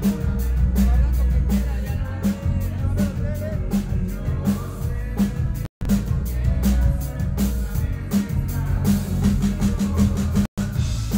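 Live band playing through a stage PA during a sound check, with drum kit and bass prominent under the other instruments. The sound cuts out completely for an instant twice, about six and ten and a half seconds in.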